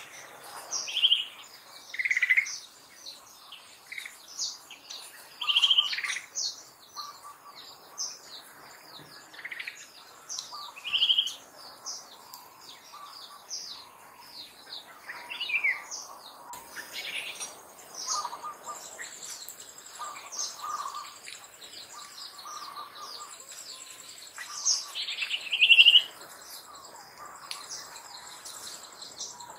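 Wild birds chirping and calling, a rapid scatter of short high chirps with several louder whistled calls that sweep in pitch; a thin, steady high tone joins about two-thirds of the way in.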